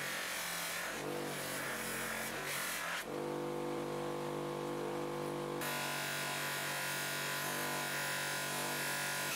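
Bench grinder with a buffing wheel running: a steady motor hum with a rubbing hiss as polishing compound and then brass stove parts are pressed against the spinning wheel. The sound shifts abruptly about three seconds in and again past halfway.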